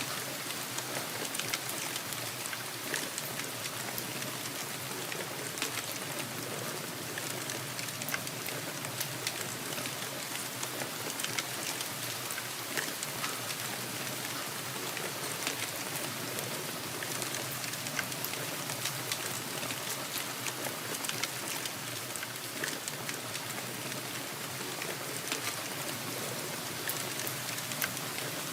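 Steady rainfall: an even hiss of rain, strongest in the high range, sprinkled with many small, individual drop ticks.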